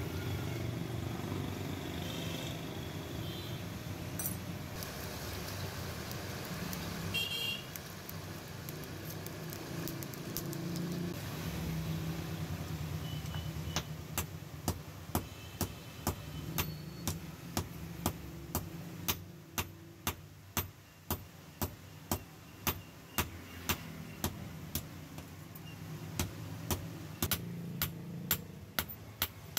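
Hand hammer striking a red-hot knife blade on a steel anvil block, ringing blows at a steady pace of about two a second that start about halfway through, with a short pause later on. Before the hammering there is only a steady low rumble with a few brief higher tones.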